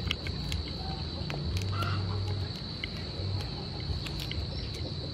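Cooked river prawn shell cracking and crackling in a few sharp clicks as it is peeled apart by hand, over a steady high insect drone and a low hum.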